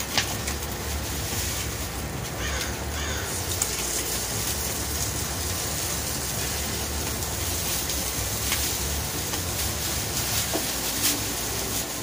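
Crows cawing a few times about two to three seconds in, over a steady rushing background noise.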